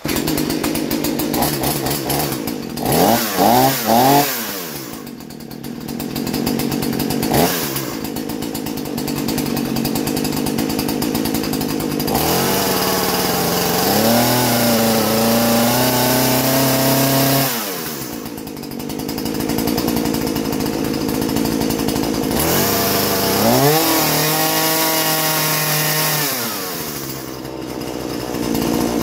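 Husqvarna 236 X-Torq two-stroke chainsaw running with its air filter off. It idles, is blipped three times in quick succession, and is then twice held at high revs for about five seconds at a time. This spins the chain while the bar oiler is being checked for oil output.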